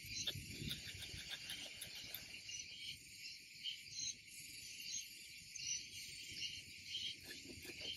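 Insects chirring steadily in a high, shrill band, with leaves and branches rustling and a few light clicks as someone reaches into a shikuwasa tree with pruning shears; the rustling is heaviest in the first couple of seconds.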